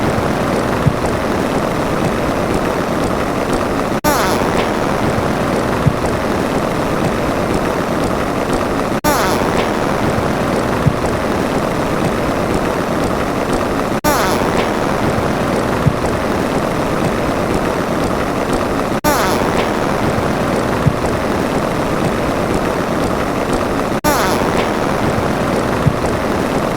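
A steady rushing noise played as a loop that restarts every five seconds, each pass opening with a short hiss and carrying a sharp click about two seconds in.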